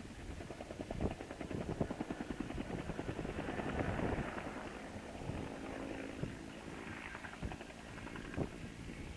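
Helicopter coming in close, its main rotor beating rapidly and growing louder to about four seconds in. It then settles into a steadier engine and rotor hum with a held tone as it hovers to set down.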